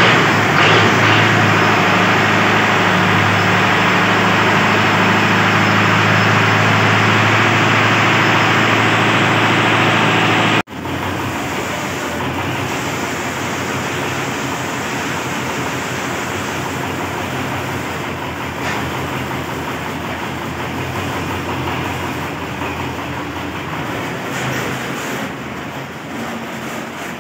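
Belarus MTZ-50 tractor's four-cylinder diesel engine running on its newly fitted injection pump. It is loud and close at first. After a sudden cut about ten seconds in it is quieter, and it fades toward the end as the tractor pulls away.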